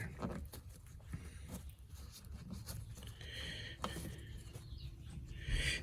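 Faint scattered clicks and light rubbing as small parts are handled on a workbench, with one sharper click just before four seconds in.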